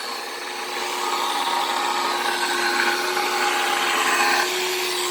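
A power tool running steadily, with a constant whine over a rushing noise; the sound eases slightly a little after four seconds in.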